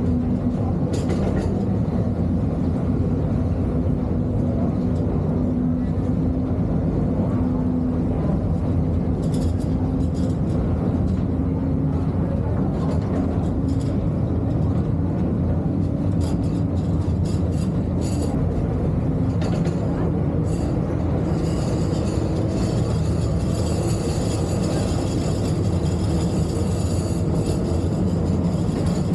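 Underground mine tour train running through a rock tunnel: a steady rumble of the cars on the rails under a low motor hum, with scattered clicks and rattles. From about two-thirds in, a high metallic squeal of wheels on the rails joins in.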